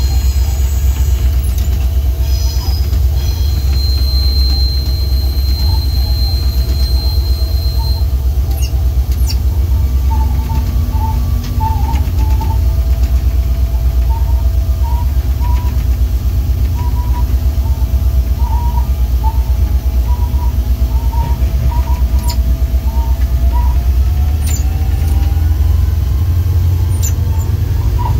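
Diesel engine of an EMD GT36HCW diesel-electric locomotive running with a steady low rumble, heard from the cab, over wheel squeal on curving track: a high squeal held for about four seconds a few seconds in, then a string of short squeaks through the middle.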